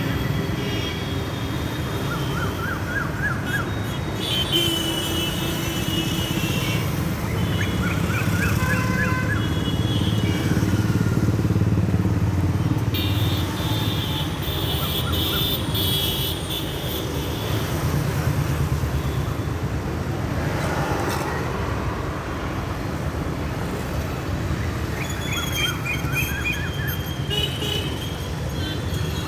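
Busy city road traffic: a steady low rumble of engines with vehicle horns honking again and again. One horn blares longer about 13 to 16 seconds in.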